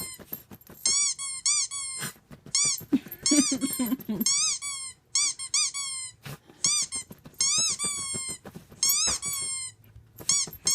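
Rubber squeaky dog toy squeezed over and over: more than a dozen short squeaks, each rising then falling in pitch, often in quick pairs. A dog gives a brief low growl about three to four seconds in.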